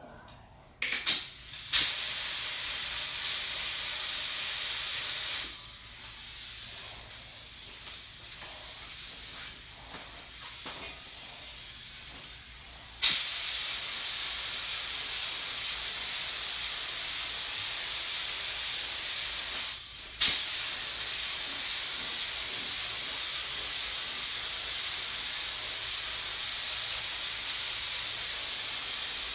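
Compressed-air paint spray gun hissing steadily as it sprays basecoat. The trigger opens with sharp bursts about a second in. The hiss turns softer for several seconds, then comes back full with another sharp burst and keeps going, with a brief break about two-thirds through.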